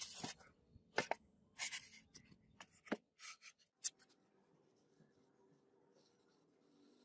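A quick run of knocks and scrapes as a steel hatchet head and a board are handled and set down, the loudest about a second in. After that comes the faint scratch of a pen drawing along the hatchet head on the board.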